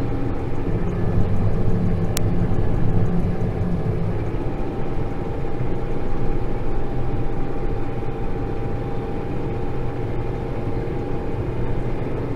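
Tractor engine running steadily under load as it pulls a round baler picking up a straw windrow, heard from the cab, with a thin steady whine and a single sharp click about two seconds in.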